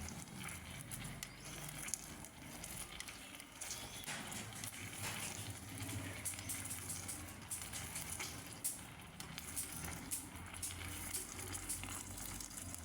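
Ginger juice, honey and salt mixture faintly sizzling and crackling as it heats in a spoon over a stove flame, cooking down toward a sticky syrup, with a low steady hum underneath.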